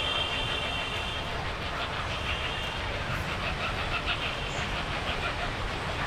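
Steady low rumble of outdoor background noise, like distant traffic. A thin, high, whistling tone sounds in the first second and again a little past two seconds in.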